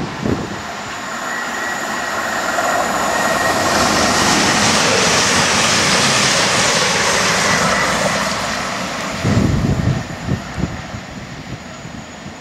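CrossCountry Voyager diesel multiple unit running through at speed: underfloor diesel engine and wheel-on-rail rush swelling as it approaches, peaking as the coaches pass, then fading as it goes away. A few low thumps come just after it passes.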